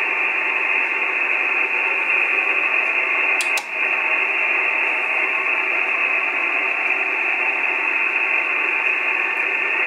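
Steady single-sideband receiver hiss from an Icom IC-9700 tuned to the CAS-4B satellite's linear transponder downlink, a flat band of static with faint steady tones in it and no clear voices, while the receive frequency is being tuned. A short click with a brief dip about three and a half seconds in.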